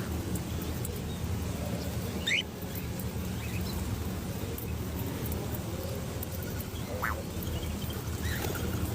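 Birds calling: a few short rising chirps a few seconds apart over a steady low rumble.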